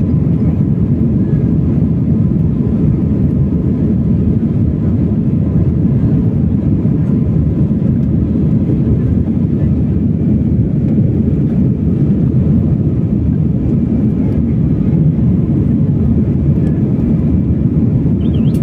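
Jet airliner cabin noise in flight: a steady, even rumble of the engines and rushing air heard from inside the cabin.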